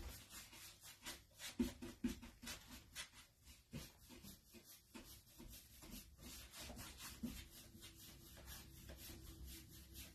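Paintbrush bristles rubbing back and forth over the painted wood of a small bookshelf, many faint, quick scratchy strokes while wet chalk-style paint is blended.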